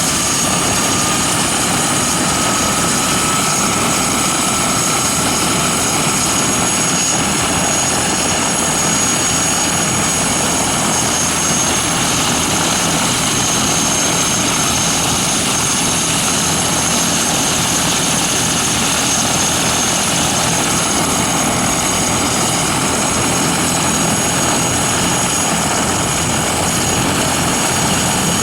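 Eurocopter-Kawasaki EC-145 (BK-117C-2) helicopter running at close range: the steady rush of its rotor and twin turboshaft engines with a high, steady turbine whine on top. A fainter tone rises slowly over the first few seconds.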